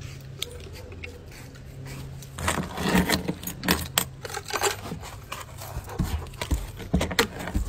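A steady low hum, then a run of quick metallic jingling and clattering starting a little over two seconds in, with the sharpest rattles around the middle and again near the end.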